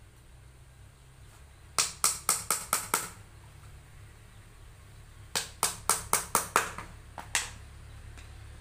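Small hammer tapping thin nails into a wooden box panel: two quick runs of about six taps each, roughly four a second, then one more tap about a second later.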